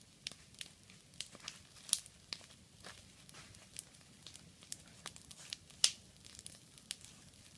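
Open wood campfire crackling, with irregular sharp pops; the loudest come about two seconds in and just before six seconds.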